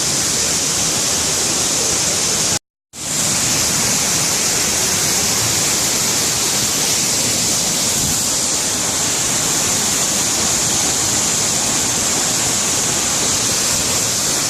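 Steady rushing of a waterfall, which cuts out for a moment about three seconds in.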